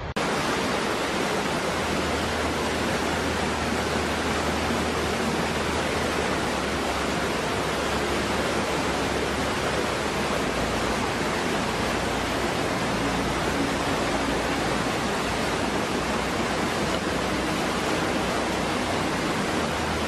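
A small waterfall pouring into a rocky pool: a steady, even rush of falling and churning water that does not change.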